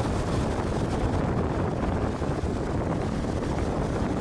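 Wind buffeting the microphone aboard a moving boat on the river, a steady rumbling noise heaviest in the low end, with the boat's running noise underneath.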